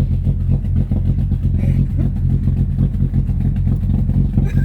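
Opel Blazer engine running steadily, a vehicle due for an engine overhaul.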